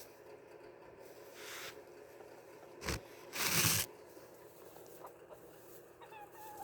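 Chickens feeding on a snack: rustling and scratching about the food, a sharp knock about three seconds in, then a louder rustle lasting half a second. A few soft, chirpy clucks follow near the end, over a faint steady hum.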